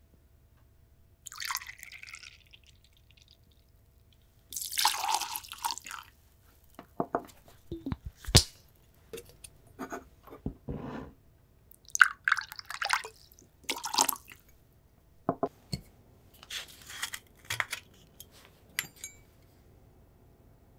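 Liquid poured in short measures from a steel jigger into a cocktail shaker, several brief pours and splashes with sharp metal clinks of the jigger and tins between them.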